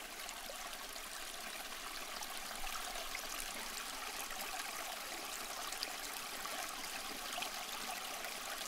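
Campfire burning: a steady hiss of flames with faint scattered crackles.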